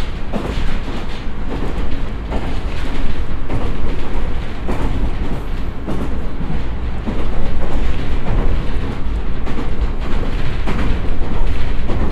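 JR East E127-0 series electric train running at about 70 km/h, heard inside the passenger cabin: a steady rumble of wheels on rail with a few light knocks.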